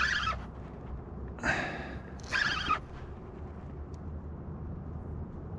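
Van Staal VR spinning reel's drag giving line in three short rips, about a second apart, as a hooked stingray pulls against it.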